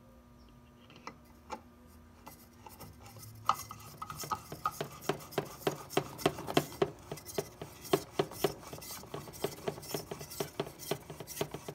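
A plastic pump diffuser being pressed and twisted by hand into the seal plate over the impeller of a Pentair variable speed pool pump, plastic scraping and clicking against plastic. A couple of single clicks come first, then a rapid, irregular run of clicks and scrapes, about four a second, starts about three and a half seconds in.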